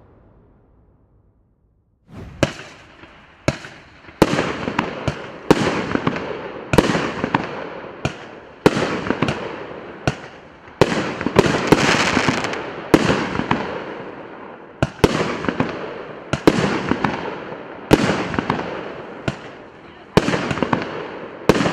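"Provokatsiya" P7690 fireworks cake firing shot after shot, starting about two seconds in. Each shot is a sharp bang followed by a fading crackle and hiss as the shells burst, roughly one shot a second, with a dense patch of crackling near the middle.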